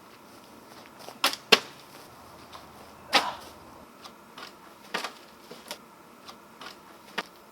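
A series of sharp knocks and clicks at irregular intervals, loudest about a second and a half in and again about three seconds in, with fainter taps after.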